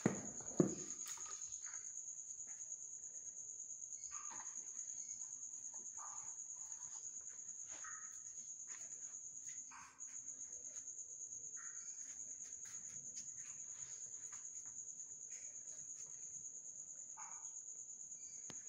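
Cricket trilling steadily on one high pitch. Two sharp thumps near the start, and a few short faint calls here and there.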